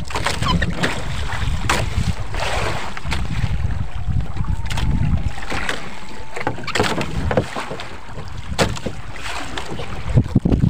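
Wind buffeting the microphone over water sloshing around a small fishing boat, with several sharp knocks against the hull or gear every second or two.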